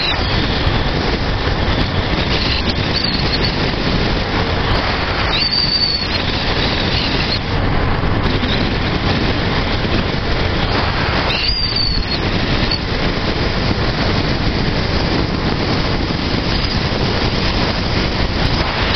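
Honda CG 125 Fan single-cylinder motorcycle engine running steadily at cruising speed through an aftermarket Guela exhaust with its baffle insert removed, mixed with heavy wind noise on the microphone. Two brief high squeals sound about five and eleven seconds in.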